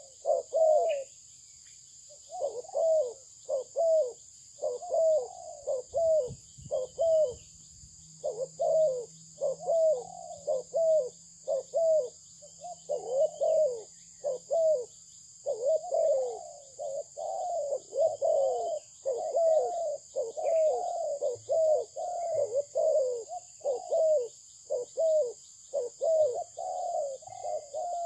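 Spotted dove (terkukur) cooing over and over in quick, repeated phrases of short notes, with brief pauses about a second in and again around seven seconds in.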